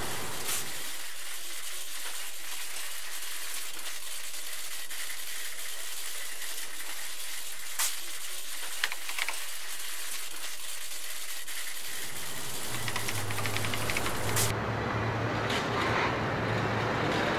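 Steady hiss of background noise, with a few short clicks about eight and nine seconds in and another near the end.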